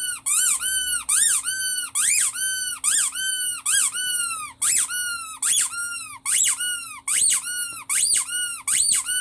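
Rubber squeaky toy squeezed over and over, about two squeaks a second, each squeak a high tone that rises and falls in pitch.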